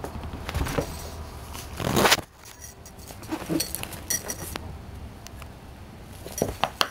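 A cat's collar bell jingling in short bursts while its paws and a fabric kicker toy scuff and knock, with a louder scuffle about two seconds in that cuts off suddenly. Later come lighter taps and rustles against a wooden floor.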